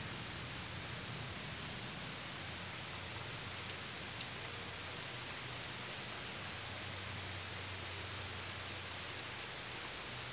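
Steady rain falling, an even hiss with a few faint drop ticks about halfway through.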